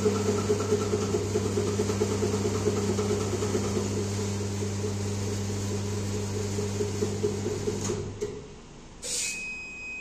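Electric hydraulic pump motor of a compression testing machine running with a steady hum while the load is applied, then shutting off about eight seconds in. About a second later comes a short click, and then a steady high electronic beep.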